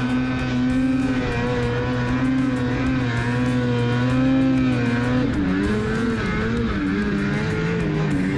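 Ski-Doo 850 two-stroke twin snowmobile engine running at high revs on a hill climb, its pitch wavering. About five seconds in, the revs drop and then rise and fall unevenly as the throttle is worked.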